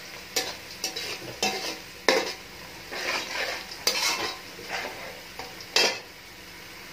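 Sliced onions sizzling in hot oil in a metal karahi, browning, while a metal spoon stirs them and scrapes against the pan about once a second.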